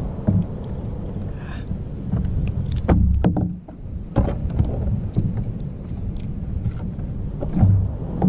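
Wind rumbling on the microphone and water moving against the hull of a small fishing boat, with a few sharp knocks about three, four and seven and a half seconds in as a freshly landed fish and tackle are handled on the boat.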